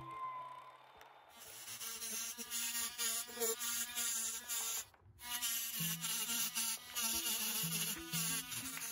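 Mini rotary tool grinding into a stone, starting about a second in: a high-pitched whine that wavers in pitch as the bit bites. It cuts out briefly in the middle, then runs on.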